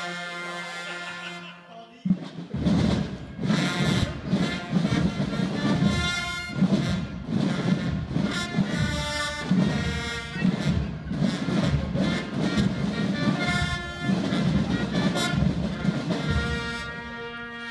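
Carnival Katzenmusik band of brass and drums playing. It opens on a held brass chord. From about two seconds in, drums beat steadily under loud brass playing. Near the end the brass settles into another long held chord.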